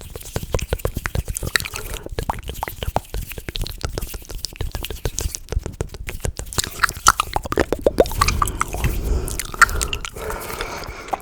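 ASMR mouth sounds close to the microphone: a rapid, uneven run of wet clicks and smacks, with a breathy hiss under them in the last few seconds.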